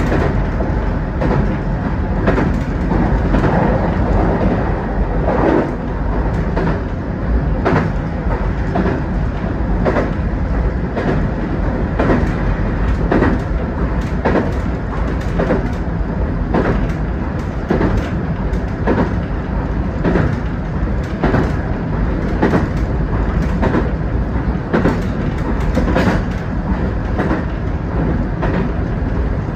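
JR West 221 series electric multiple unit running along the line, heard from inside the leading car: a steady running rumble broken by frequent, irregularly spaced clicks and knocks of the wheels passing over rail joints.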